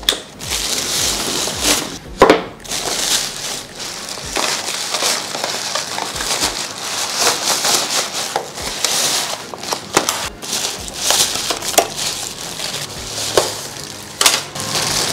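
Thin plastic carrier bag rustling and crinkling continuously as takeaway food containers are pulled out of it, with a few sharp knocks among the rustling.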